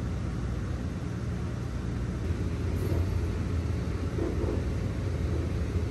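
Steady low rumble of vehicle noise, with a hiss above it.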